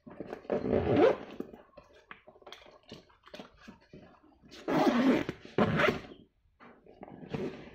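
Zipper on a fabric insulated thermal bag being pulled along its track in several separate strokes, with small handling clicks and rustles between them.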